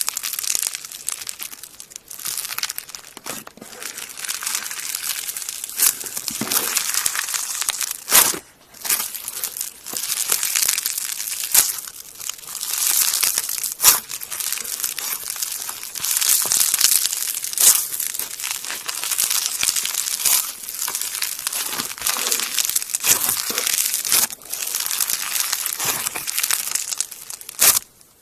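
Green slime being squeezed and worked by hand, giving a dense crackling and crinkling with sharp pops now and then. It comes in stretches of a few seconds and stops abruptly near the end.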